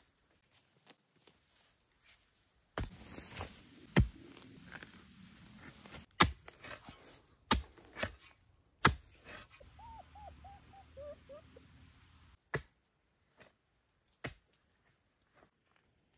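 Hand tool chopping wood: about seven sharp strikes at uneven gaps of one to two seconds. A brief run of short, quick calls comes between strikes near the middle.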